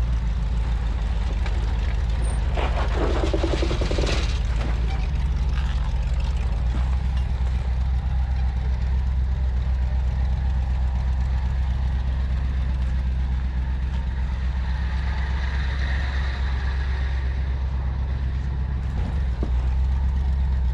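Willys Jeep engine running as it drives along, a steady low drone, with a stretch of rattling and clatter about three to four seconds in.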